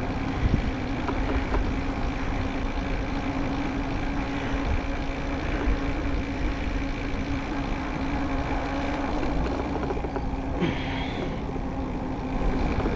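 Steady rumble of a mountain bike rolling on wet pavement, with wind on the microphone and car traffic close by. A short hiss comes about eleven seconds in.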